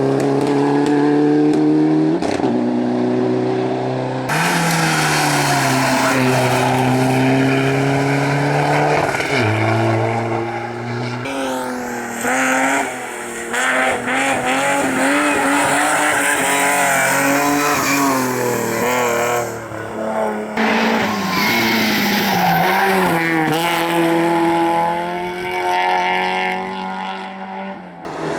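Rally car engines driven hard on a stage, revving up and dropping sharply again and again through gear changes and lifts off the throttle.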